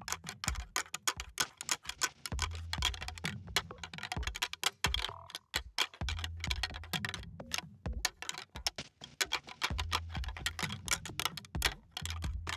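Background music with a fast, dense clicking percussion and a pulsing bass that comes in and drops out every couple of seconds.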